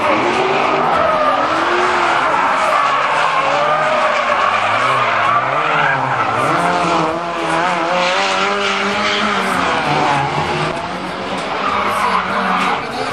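Two drift cars sliding in tandem, their engines revving up and down as the drivers work the throttle, over continuous tyre screech.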